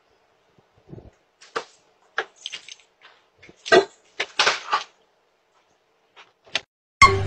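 Footsteps and handling noises picked up by a doorbell camera's microphone: a scattered string of short knocks, scuffs and rustles over a faint steady hum. Flute music cuts in right at the end.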